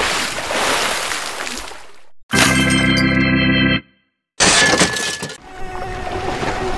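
Surf noise from a breaking wave that fades over about two seconds, then a held organ-like chord that cuts off abruptly. After a brief silence comes a short burst of noise, and near the end the steady hum of a small drone's propellers begins.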